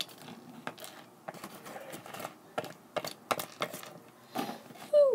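Small plastic toy figures and pieces being handled and set down on a hard surface: irregular light clicks and taps, about two a second. Just before the end comes a short falling vocal squeak.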